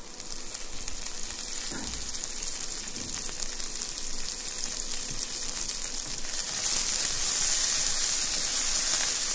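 Instant noodles in boiling water in an aluminium pot, a steady hiss, while a wooden spatula stirs and scrapes through them. The hiss grows louder after about six seconds.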